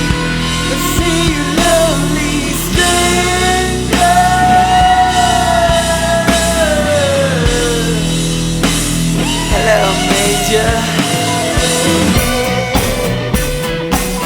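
Rock music: a band with drum kit and bass under sustained, sliding melodic lines, likely wordless vocals or a guitar lead.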